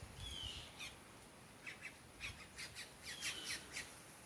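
Backyard birds calling: a short whistled note at the start, then a quick run of short, harsh squawks in the second half.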